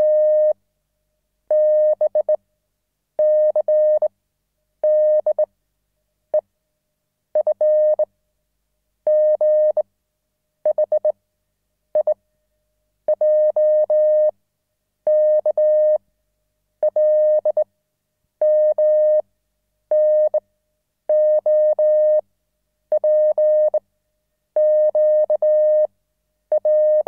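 An electronic beep tone sounding in repeated pulses, most just under a second long and coming about every second and a half to two seconds, a few cut short or stuttering.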